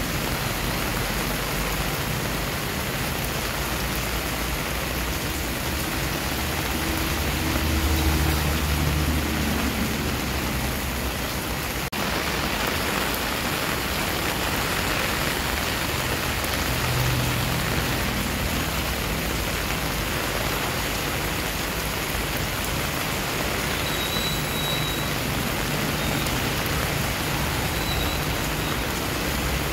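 Heavy rain falling steadily on a paved driveway and garden leaves, an even dense hiss. A low rumble swells briefly about a quarter of the way in and again past the middle.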